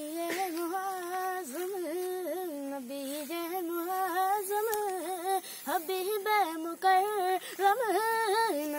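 A boy singing solo, unaccompanied: a slow, ornamented melody held on long, wavering notes, opening an Urdu naat.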